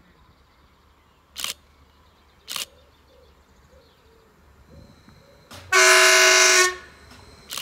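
Horn of a Greater Anglia Class 755 train sounded in one blast of about a second, a chord of several tones, as the train approaches a level crossing. Two sharp clicks come before it and two more near the end.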